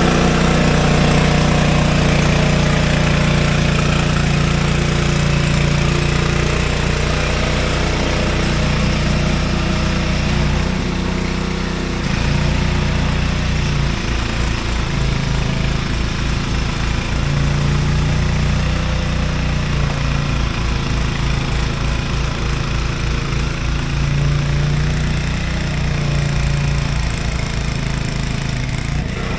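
Craftsman 5/24 snowblower's small single-cylinder engine running steadily. Partway through, its beat turns more distinct and uneven.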